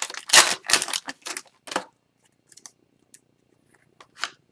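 Foil wrapper of a hockey card pack crinkling and tearing, with the cards rustling as they are handled, then only a few light clicks and rustles.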